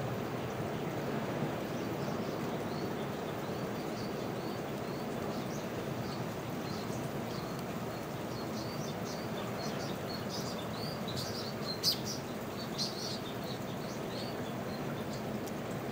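Small birds chirping in quick short calls over a steady rush of water, the chirping busiest about three-quarters of the way through. One sharp click stands out among the calls.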